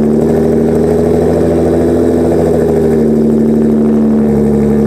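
Car engine idling steadily with an even hum.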